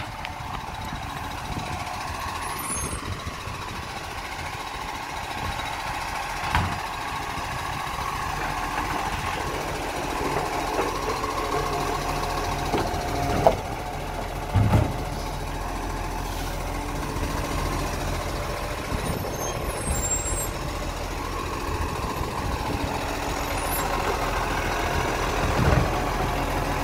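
Side-loading garbage truck running at a steady engine note while its hydraulic arm grabs, lifts and tips a kerbside bin. There are a few clunks of the bin and arm, the loudest a little past the middle.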